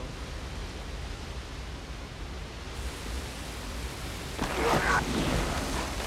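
Steady rushing roar of a cave waterfall: a deep rumble under a hiss of falling water and spray. About four and a half seconds in, a louder burst of sound rises over it for a little over a second.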